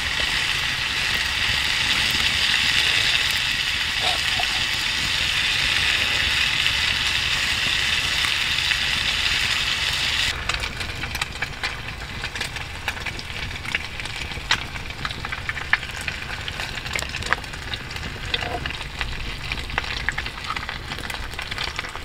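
A char-cloth tin (a small metal Vaseline container with a hole in its lid) heating in the campfire, hissing steadily as wood gas vents and burns from the hole. About ten seconds in the hiss stops suddenly, leaving the quieter crackle and scattered pops of the fire.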